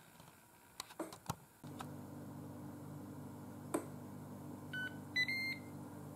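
Ninja Foodi pressure cooker/air fryer beeping twice near the end, a short lower beep then a longer higher one, signalling that the pressure-cook cycle is done. A low steady hum runs underneath, and a few light clicks come before it.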